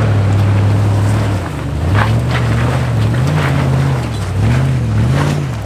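Toyota LandCruiser 100 series V8 engine pulling the truck up a short, rutted dirt track. The revs hold steady at first, then rise and fall in several surges, with a few sharp knocks.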